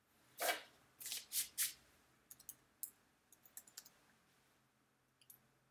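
Computer keyboard keys clicking as a colour code is typed: a few louder key strikes in the first couple of seconds, then a run of lighter, quicker taps.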